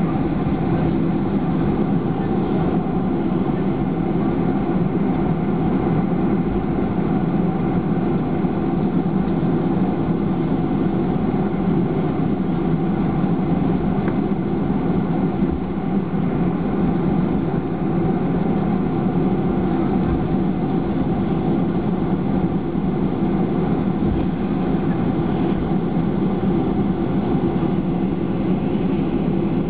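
Steady cabin noise inside a Boeing 737-500 taxiing on the ground, with its CFM56 turbofan engines running at low taxi power.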